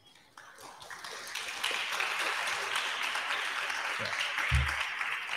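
Audience applauding. The clapping builds over the first second or so, holds steady, and starts to thin near the end. A short low thump comes about four and a half seconds in.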